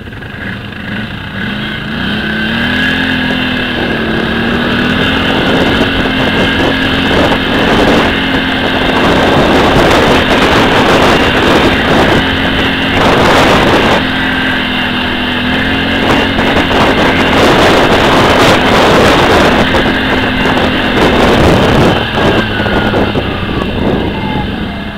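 Can-Am Outlander 500 ATV engine running under throttle while riding, its note rising a little about two seconds in and then holding steady, easing off near the end. Rough wind noise on the onboard microphone runs under it.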